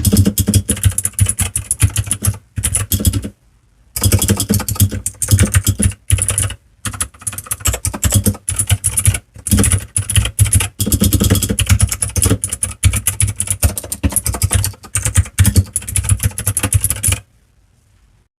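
Typing on a Royal Kludge RK61 Plus mechanical keyboard: a fast run of key clicks with a few short pauses, stopping about a second before the end.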